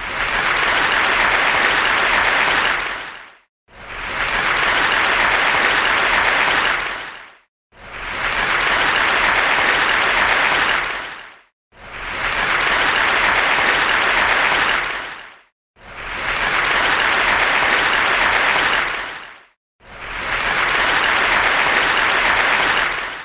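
Crowd applause, an ovation of many hands clapping, heard six times over in bursts of about three and a half seconds, each swelling up and fading away, with a brief silence between them.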